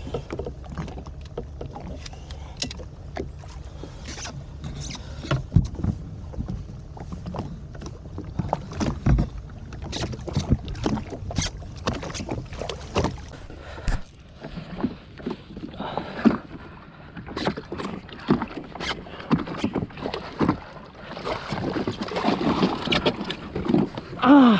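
Engine hum of a Sea-Doo Fish Pro personal watercraft, low and steady, which cuts off about 14 seconds in. Over it come repeated knocks and clatter of fishing gear being handled on the craft while a fish is being fought and landed.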